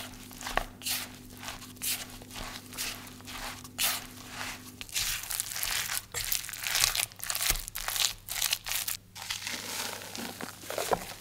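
A spatula stirring sliced zucchini with flour and seasonings in a glass bowl: repeated wet scraping strokes, about two a second at first, then quicker and denser for a few seconds before easing off near the end.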